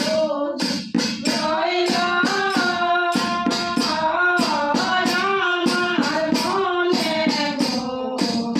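Women's voices singing a Bengali kirtan, accompanied by small brass hand cymbals (kartal) and a brass gong-plate struck with a stick, which keep a steady beat of about three strokes a second.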